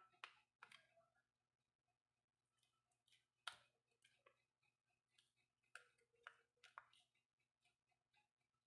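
Faint, scattered clicks and light taps, the sharpest about three and a half seconds in.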